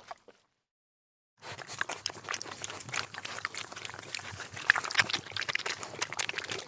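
A mini pig eating, chewing and crunching its food with a quick run of small crackling clicks, starting after a pause of about a second and a half.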